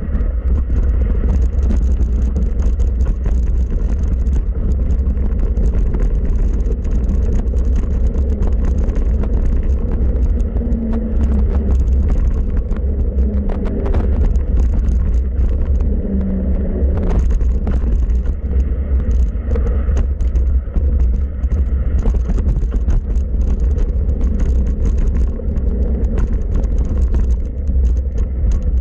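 Mountain bike descending a dirt forest trail at speed, heard through the rider's camera microphone: a steady heavy low rumble of wind on the mic and tyres on dirt, with scattered clicks and rattles from the bike over the rough ground.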